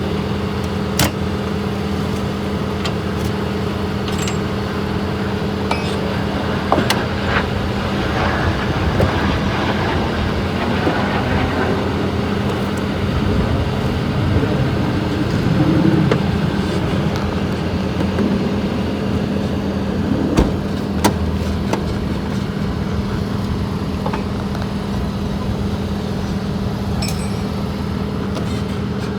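A motor vehicle engine running at a steady speed, with a few sharp clicks or knocks here and there.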